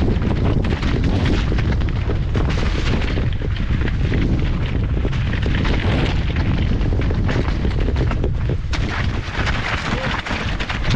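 Heavy wind rumble on the microphone during a fast downhill descent, with a continuous clatter of knocks and rattles as the bike runs over rough, rocky ground.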